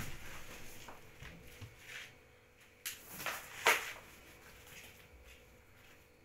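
Three sharp knocks or taps close together, the last and loudest about three and a half seconds in, after some soft rustling, over a faint steady hum.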